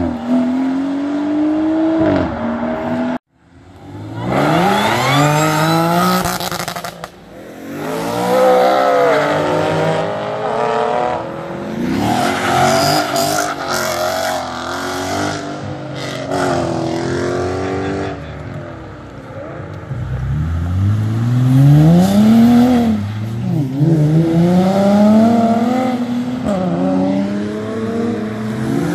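A succession of cars accelerating hard away, their engines revving up through the gears, with the pitch climbing and then dropping back at each shift. There is a brief silent break about three seconds in.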